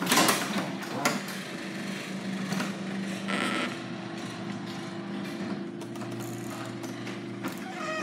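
Garage door moving on its tracks, with a steady mechanical hum and running clatter and clicks, plus a brief squeak about three and a half seconds in. The squeaking comes from dry, unlubricated rollers and hinges.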